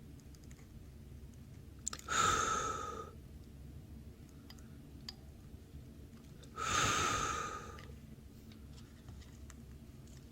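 Two short bursts of rushing, hissing air, each about a second long and about four and a half seconds apart, the first preceded by a small click.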